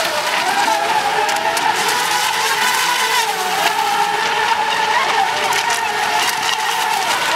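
Several electric radio-controlled racing model boats running at speed, their motors whining at several pitches that rise and fall as the boats throttle through turns, over a steady hiss.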